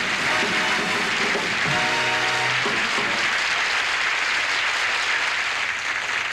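Studio audience applauding, with band music under it that ends on a held chord about three seconds in, while the applause carries on.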